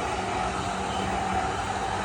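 Electric commuter train running past, a steady rumble with a continuous whine of held tones over it.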